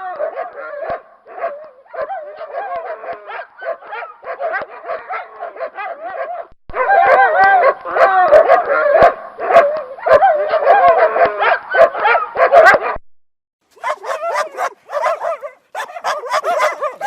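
Dog barking and yelping in a rapid run of calls, in spliced segments that cut off abruptly twice, after about six seconds and near the three-quarter mark. The loudest, most frantic stretch lies in the middle.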